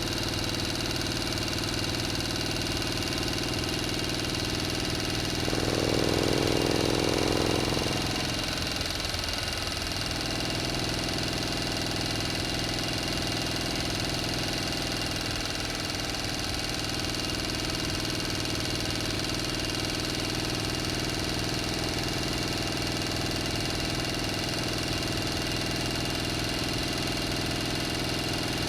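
An engine running steadily at idle, swelling briefly louder for about two seconds around a fifth of the way in before settling back.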